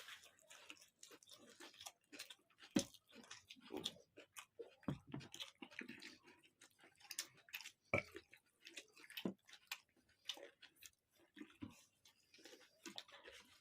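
Faint chewing and eating: irregular soft clicks and smacks of mouths working on food, with a couple of sharper knocks about 3 and 8 seconds in.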